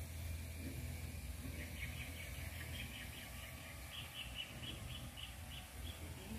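A faint, rapid train of high chirps, about five a second, starting a couple of seconds in, over a steady low rumble.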